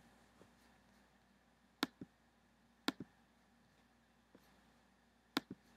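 Three computer pointer clicks, each a sharp tick followed at once by a fainter second one, about two, three and five and a half seconds in, with quiet room tone between.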